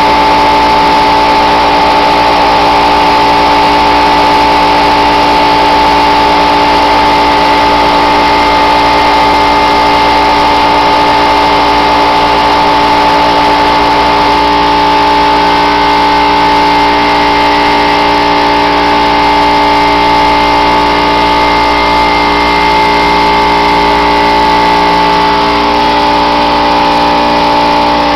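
Air compressor running loudly and steadily, a constant high whine over its hum, with no change.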